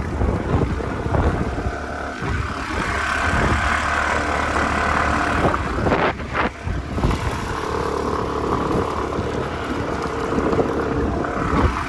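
Vespa scooter engine running under way, its pitch shifting as it is ridden uphill, with wind noise on the microphone.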